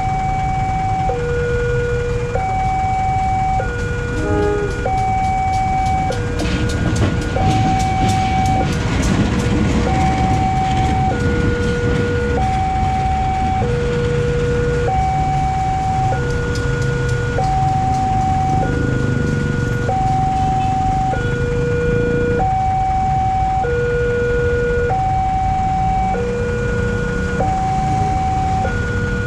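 Railway level-crossing warning alarm sounding continuously, an electronic two-tone signal alternating a higher and a lower note about once a second, over a steady low rumble. A burst of rapid clicking comes in about six seconds in and fades by ten.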